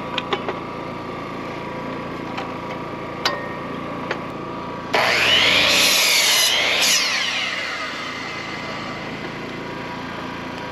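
Power miter saw cutting wood. The cut is loud, with the blade's pitch sweeping down and up, and it winds down over the next couple of seconds. A steady hum and a few light clicks come before it.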